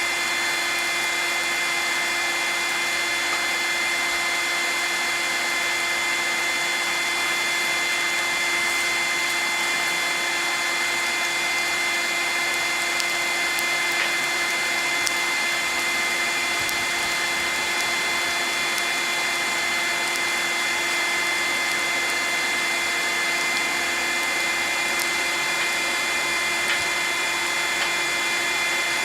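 Electric blower forcing air into a forge, running steadily: a constant rush of air with a steady motor whine. A few faint clicks come through it.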